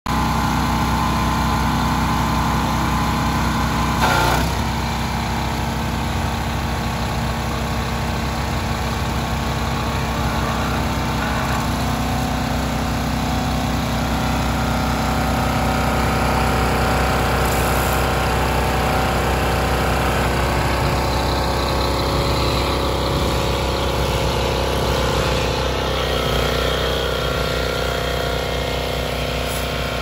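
Generac gas pressure washer's engine running steadily under load, with the hiss of the spray from the wand. A brief knock sounds about four seconds in.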